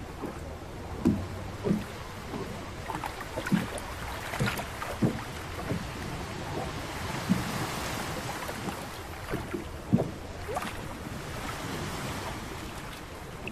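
Irregular knocks and thumps on a small fishing boat, about a dozen, over steady wind and sea noise.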